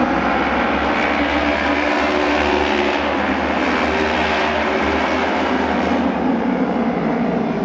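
Several auto race motorcycles running together around the oval track, their engines making a dense, steady noise that swells slightly about four seconds in as the pack passes.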